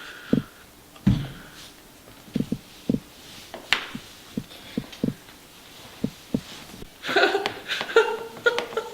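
A string of short, irregular thumps and knocks, then a wordless voice-like sound near the end.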